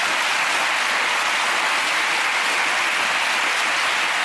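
Studio audience applauding steadily, welcoming a guest who has just been introduced.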